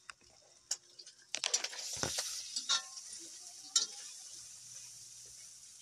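Pork pieces sizzling in a large wok as they are stirred, with knocks and scrapes of the spoon against the pan. The sizzle jumps up about a second and a half in and then slowly dies down.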